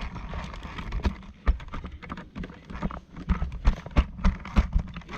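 Irregular thumps and clacks of a plastic Tyco R/C Nitro Dozer toy car being handled and knocked about, several knocks a second with no motor running.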